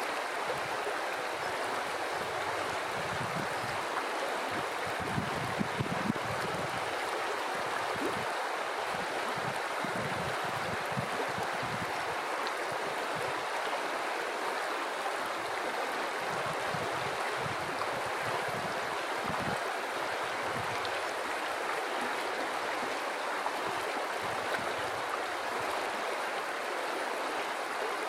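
A river flowing steadily over stones, a continuous rushing of water with small gurgles and splashes in it.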